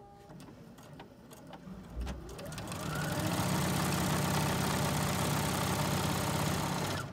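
Bernette b77 computerized sewing machine starting about two seconds in with a rising whine as it speeds up, then stitching steadily at high speed through eight layers of denim without struggling, and stopping abruptly near the end.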